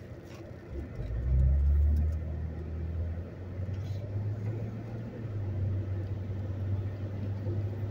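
Vehicle engine heard from inside the cabin, pulling away from a stop at a green light: a low rumble swells about a second in as it accelerates, then settles into a steady drone with wet-road tyre noise.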